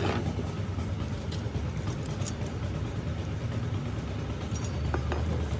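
Steady low engine rumble, like motor traffic, with a few light clicks.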